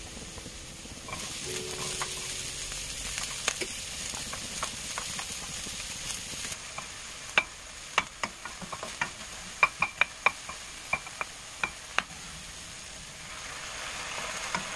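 Garlic and diced onion sizzling in hot oil in a wok, with a wooden spatula stirring and knocking against the pan in a run of sharp clicks through the middle. Near the end the sizzle swells as the soy-sauce seasoning hits the hot pan.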